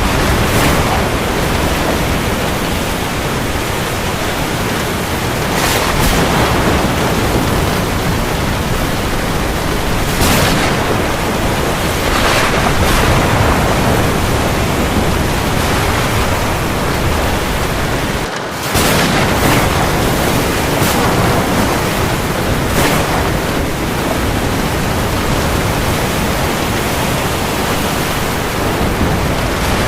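Heavy rain falling on the sea: a loud, dense hiss that swells every few seconds and cuts out for an instant about eighteen seconds in.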